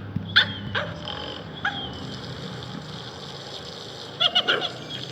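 Dog giving short, high-pitched whining yips: a few single calls in the first two seconds, then a quick run of them about four seconds in.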